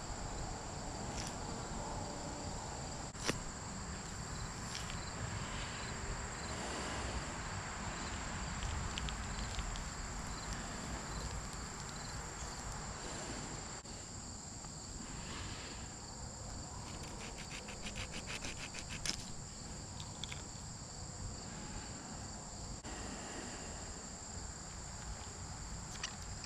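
Insects singing in a steady high drone. Over it come close rustling and handling noises as a freshly killed squirrel is skinned and pulled apart by hand, with two sharp clicks, one a few seconds in and one past the middle.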